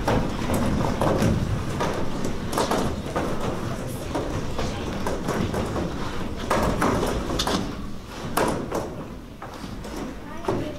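Metal folding chairs being set out and moved around on a stage, with irregular knocks, clatters and scrapes, plus footsteps as the actors take their places.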